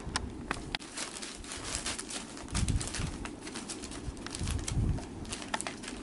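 Bengal kittens playing on crumpled brown packing paper: the paper crinkling and rustling with many small clicks, and low thumps about two and a half seconds in and again near five seconds.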